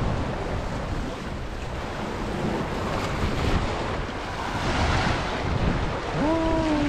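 Sea waves washing and breaking over a flat rocky shore, with wind buffeting the microphone; the wash swells about five seconds in.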